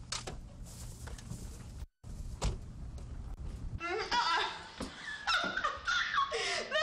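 Low outdoor rumble with a few sharp knocks, which cuts out suddenly before 2 s. From about four seconds in, several women's voices talk over one another, animated and high-pitched.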